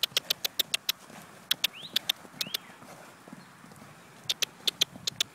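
Horse cantering loose on soft dirt, with three quick runs of sharp clicks and two short rising chirps about two seconds in.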